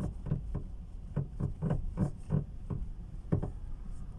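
Repeated creaking from a Citroën C4 as the gear lever is jerked back and forth into neutral, two to three short creaks a second over a steady low hum. It is a strange creak that the owner says is not the steering intermediate shaft (already greased) nor the engine mounts (already replaced).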